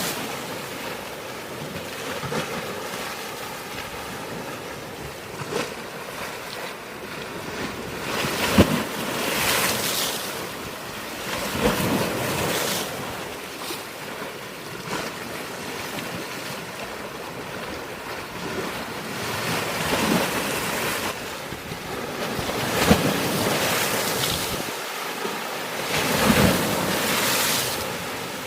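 Sea waves breaking against a rocky shore: a continuous wash of surf that swells every few seconds, with sharp splashes as waves hit the rocks, the loudest about a third of the way in and again near the end.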